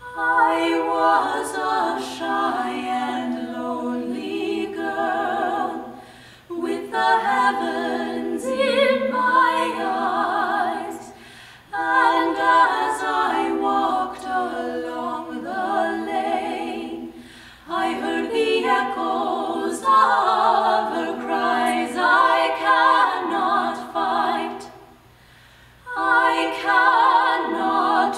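Female vocal trio singing a cappella, in phrases of several seconds each with brief breaks between them and a longer pause about three-quarters of the way through.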